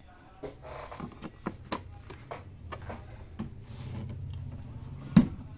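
Scattered clicks and knocks of handling as a TV's mains plug is pushed into a wall socket board. A low hum comes up about three and a half seconds in, and one sharp click near the end is the loudest sound.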